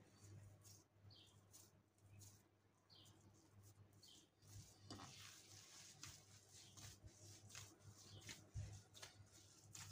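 Faint crackling and rustling of hands kneading crumbly oat and walnut cookie dough in a glass bowl, more busy in the second half, with a few short high chirps early on and a low steady hum underneath.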